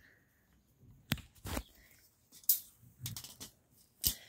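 Metal wire cage clicking and knocking: a handful of sharp clicks, the loudest about a second in and near the end, with a few softer thumps between.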